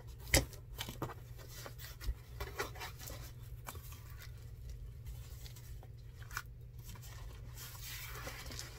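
A cardboard shipping box being opened, then plastic bags of yarn inside rustling under the hands, with scattered light clicks and a sharp knock about half a second in.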